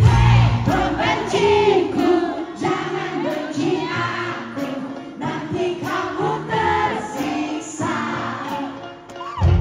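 Live rock band playing: a female lead vocal sings over electric guitars, bass and drums. The band thins out in the middle and comes back in loud just before the end.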